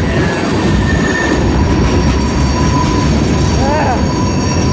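Freight train of hopper cars and boxcars rolling past at close range: a loud, steady rumble of wheels on rail with thin, high wheel-squeal tones held over it.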